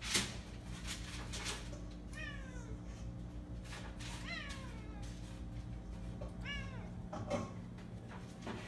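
An F1 Savannah cat meowing three times, each a short sliding call spaced about two seconds apart. A sharp knock just after the start is the loudest sound, and another knock comes near the end.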